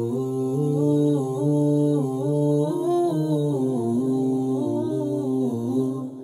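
Background music: a wordless vocal melody over a low bass line, dipping briefly near the end.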